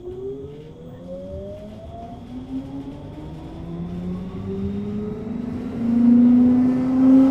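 Siemens NF8U tram's electric traction drive whining as the tram accelerates, several tones rising steadily in pitch and growing louder toward the end.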